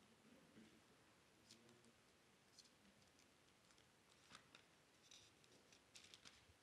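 Near silence broken by faint, short rustles and flicks of thin Bible pages being leafed through by hand, a few spread through the middle and a quick cluster near the end.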